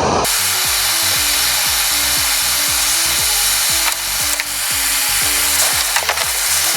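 Background music with a stepping bass line, over a steady loud hiss that starts right at the beginning.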